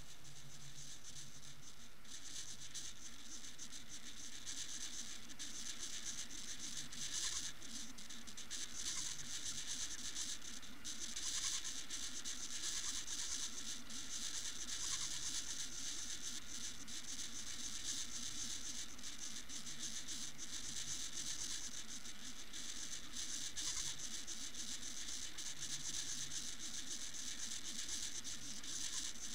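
Steady underwater crackling and fizzing hiss, heard through an underwater camera in lake water.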